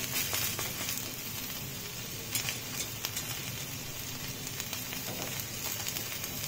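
Onion uttapam sizzling steadily in oil on a nonstick pan, frying onion side down after being flipped, with a few light clicks.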